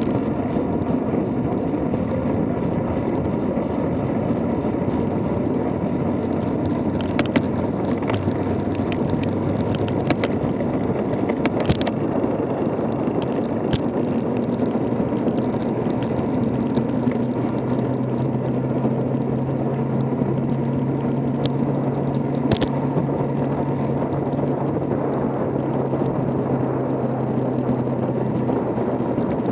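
Steady wind buffeting and tyre-on-asphalt rumble picked up by a camera on a moving road bike, with a few sharp clicks around the middle and a low steady hum coming in past the halfway mark.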